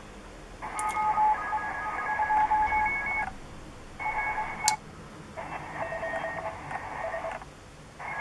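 Sony ICF-SW7600GR shortwave radio's speaker output while it is tuned around 7 MHz: stretches of band hiss with several steady whistling tones, cut by short drops in sound as the frequency is stepped. A couple of sharp clicks come through.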